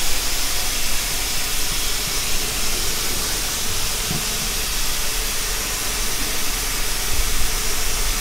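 A steady hiss with a low hum beneath it, unchanging throughout.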